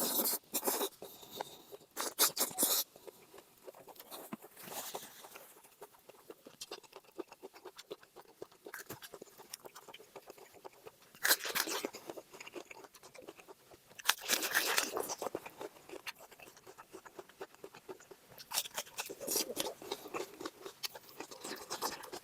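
Close-up chewing and crunching of cooked pork. Loud crackly bites come in several clusters, with quieter chewing clicks between them.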